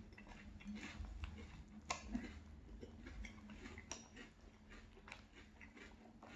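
Faint close-up chewing of crunchy Boo Berry cereal: soft crunches and wet mouth clicks, with a sharper click about two seconds in.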